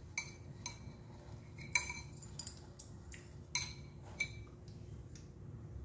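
Dishware and a utensil clinking together in a cooking pot: about seven light, separate clinks, each with a short ringing tone, the loudest about two and three and a half seconds in.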